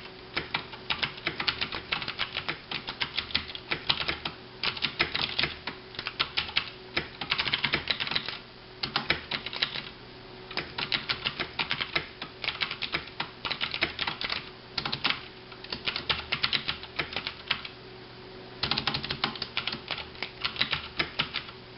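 Fast typing on a KBtalKing Pro mechanical keyboard with clicky Cherry MX Blue key switches: rapid runs of sharp key clicks in bursts, with short pauses between words. The keys are bottoming out a little as they are struck.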